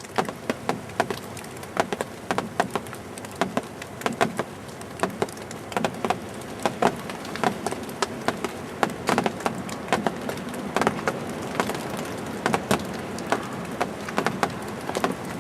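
Wind-driven snow ticking irregularly against a surface, many small taps a second over a steady rush of wind.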